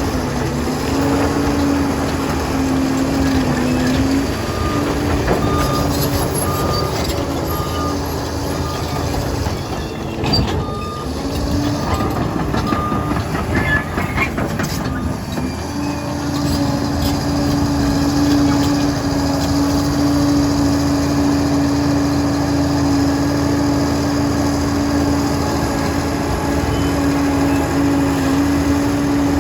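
Liebherr 746 crawler dozer working: its diesel engine and running gear make a loud, steady noise with a steady whine over it. A reversing alarm beeps evenly for several seconds, starting about five seconds in.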